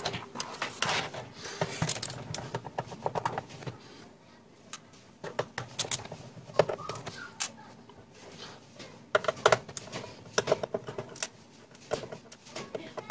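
Irregular clicks, taps and rattles of a mechanical keyboard being handled and taken apart by hand as its disassembly begins.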